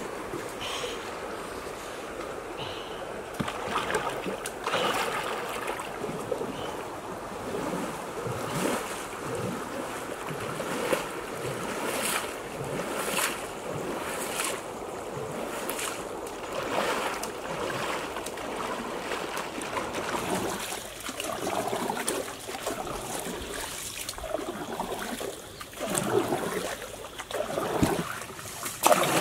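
A wooden paddle splashing into river water stroke after stroke, about one stroke every second or so, as a dugout canoe is paddled, over a steady rush of moving water.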